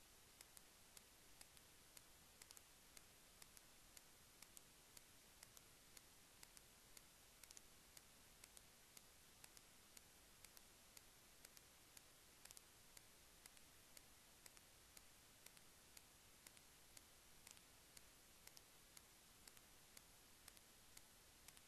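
Near silence: faint, quick clicks, about two or three a second and slightly uneven, over a low steady hiss.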